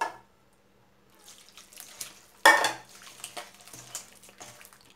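Hand squishing and mixing wet brioche dough in a stainless steel bowl as the warm milk, water and melted butter mixture is poured in, with small scattered clicks and one sudden louder sound about halfway through.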